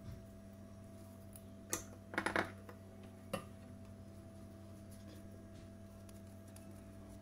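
Stainless steel mixing bowl knocked lightly a few times: a single click, then a short rattling clatter, then one more click, over a steady low hum.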